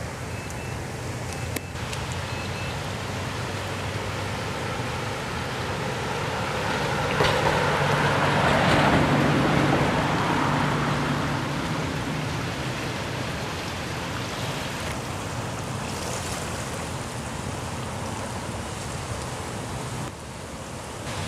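Floodwater rushing and churning steadily in a swollen creek around bridge pilings, swelling louder for a few seconds in the middle and then easing.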